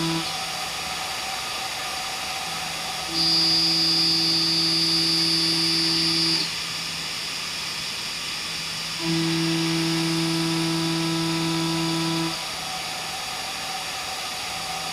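CNC machining centre milling H13 tool steel: a steady pitched cutting tone comes in for about three seconds as the cutter engages the steel, drops away for about three seconds, then returns. This happens twice, and the tone starts again at the very end. A lower machine hum and hiss run on between the cuts.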